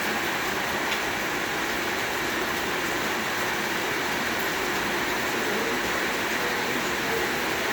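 Heavy rain beating on a roof: a steady, dense rush of drops at an even level.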